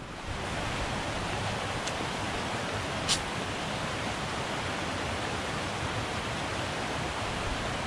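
Small mountain creek rushing over rocks in steady white water, swelling up about a quarter second in as it comes close. A single sharp tap about three seconds in.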